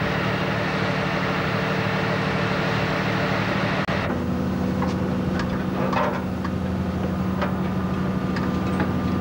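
Steady hum of a minesweeper's engines and deck machinery, heard from the working stern deck; the hum's pitch changes at a cut about four seconds in, after which a few light knocks come through.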